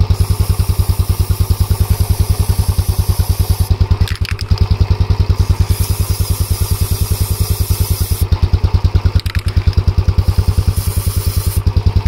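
Motorcycle engine idling in gear with a steady rapid beat, turning the rear wheel. Chain lube spray hisses from an aerosol can onto the drive chain in a few long bursts that start and stop.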